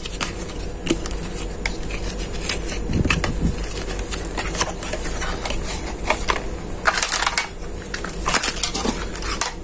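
Small cardboard box being opened and handled by hand: irregular cardboard scraping, crinkling and small knocks, with a denser burst of scraping about seven seconds in.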